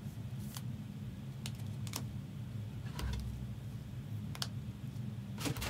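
A few scattered clicks of a computer keyboard being typed on, over a steady low hum.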